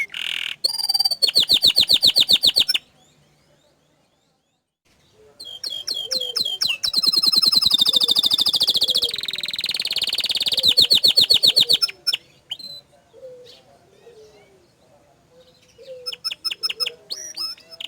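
Domestic canary singing in fast, rolling trills of rapidly repeated notes. After the first short phrase there is a pause of about two seconds. A long stretch of song follows, then softer scattered notes, and a fresh burst of trills near the end.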